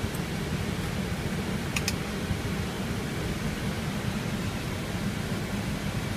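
Steady low hum and hiss inside an Airbus A319 cockpit as the airliner taxis slowly, with two short, faint clicks about two seconds in.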